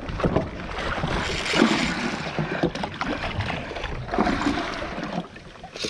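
Sea water rushing and splashing around a small fishing boat, in two louder surges over a steady low rumble.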